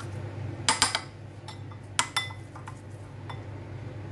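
Metal teaspoon stirring and clinking against a ceramic bowl, mixing a thick spice-and-oil paste. There is a quick cluster of clinks under a second in and two sharper clinks around two seconds in, over a steady low hum.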